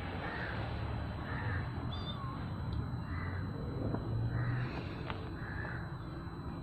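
A bird calling about five times, short calls roughly a second apart, over a steady hiss and low hum.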